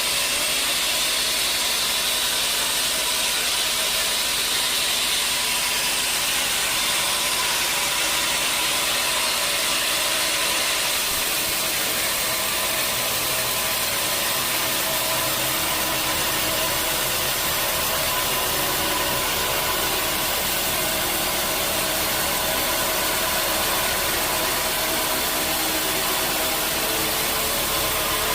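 Sawmill machinery running steadily, a continuous drone with a hiss over it. The low end grows heavier about eleven seconds in.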